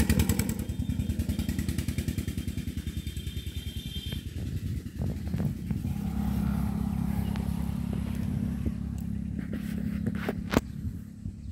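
An engine running, a rapid even chugging at first that fades over the first few seconds, then a steadier low hum, with a few sharp clicks, the loudest near the end.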